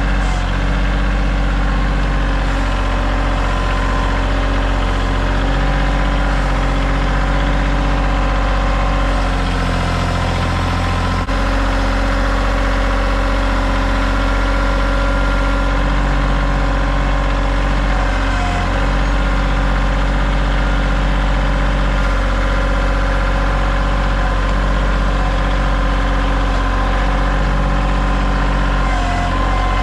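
Kioti tractor's diesel engine running steadily at idle, its note shifting briefly about ten seconds in.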